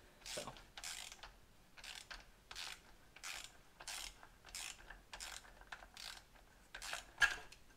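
Ratchet wrench clicking through repeated short back-strokes, about three every two seconds, as it unscrews the spring-loaded cap of a Harley-Davidson Sportster fork tube.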